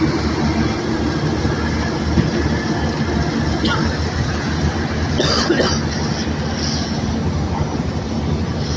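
Loud, steady rumble and rattle of river rock pouring off the end of the barge's unloading chute onto a gravel pile, over the noise of the unloading machinery. A brief sharper sound stands out about five seconds in.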